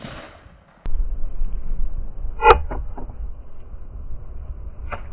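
The echo of a .410 shotgun blast fades at the very start, then a low rumble sets in on the microphone. About two and a half seconds in a short pitched call sounds twice in quick succession, and once more, fainter, near the end.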